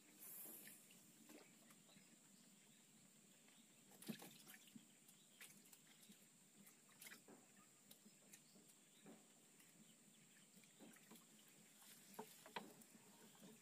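Near silence: faint outdoor room tone with a steady high-pitched hiss and scattered small clicks and ticks, the loudest about four seconds in and near the end.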